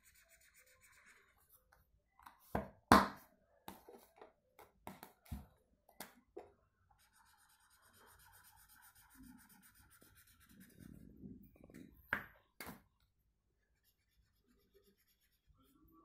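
Felt-tip marker scratching on paper as small circles are coloured in, with scattered clicks and knocks from the markers being handled. The loudest is a sharp knock about three seconds in.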